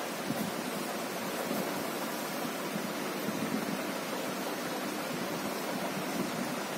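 Steady rushing background noise, even throughout, with no distinct sounds in it.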